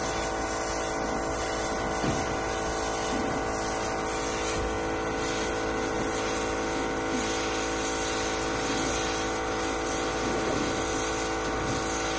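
Small electric air compressor running steadily, a hum with many tones, under the hiss of a compressed-air blow gun blowing dust out of a vehicle's cylindrical air filter element from the inside.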